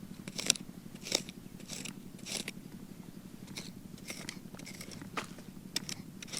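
Irregular scrapes and crunches of a hand tool digging into soft soil, levelling out a pit dug for a mud stove.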